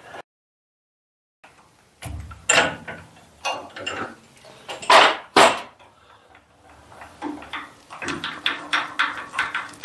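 Metal tools knocking and clinking at the milling machine vise during drilling and tapping of an aluminium part, a few separate sharp knocks followed by a quick run of light clicks, about four or five a second.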